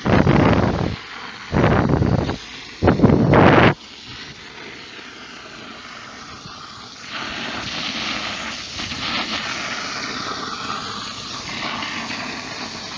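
Water jetting from a garden hose nozzle into sandy soil, washing sand away from a buried pipe. Four short loud bursts in the first four seconds, then a steady hiss that gets brighter about seven seconds in.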